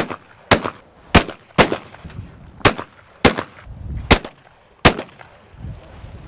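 Shotgun fire: a rapid series of about eight sharp bangs in quick succession, with a short pause before the last couple.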